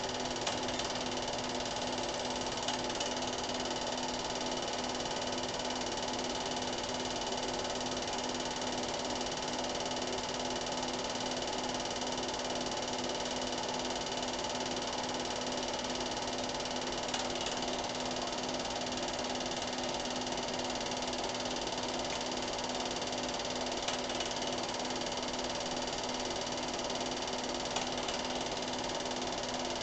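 Cine film projector running: a steady mechanical whirr with a constant hum and occasional faint clicks.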